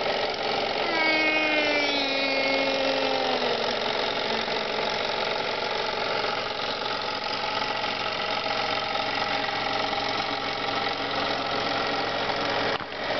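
Toy model steam engine running steadily, a constant hiss and whirr from its steam and moving parts. A tone slides down in pitch about a second in and fades out a couple of seconds later.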